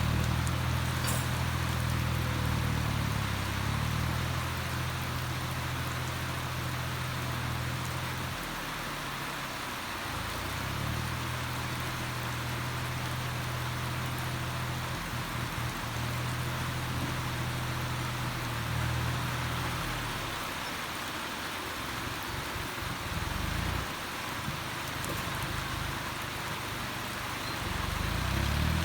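Steady rain hissing, with a Kubota's diesel engine humming low underneath. The engine fades out about eight seconds in, returns, fades again about two-thirds of the way through, and comes back near the end.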